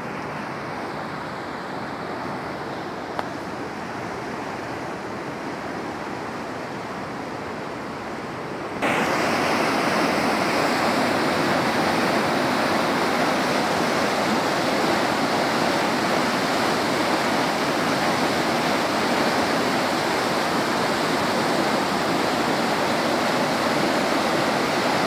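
Floodwater in a stream rushing steadily. About nine seconds in it becomes suddenly louder: the churning rush of water pouring through the openings of a brick weir.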